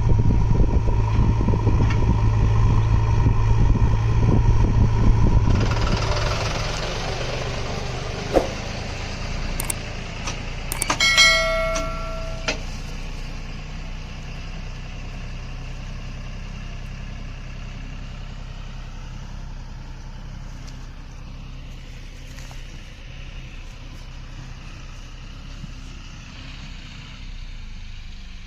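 Diesel engine of a JCB backhoe loader running, loud for the first few seconds and then easing to a steady, quieter run. About ten seconds in come a few sharp knocks and a short high-pitched tone.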